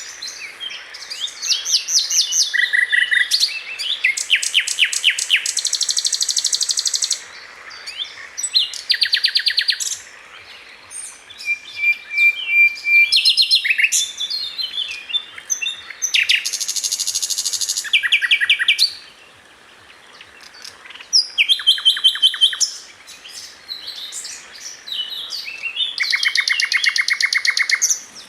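Nightingale singing: a varied series of phrases made of fast runs of repeated notes and trills, one of them a steady pure whistle about halfway through, with short pauses between phrases.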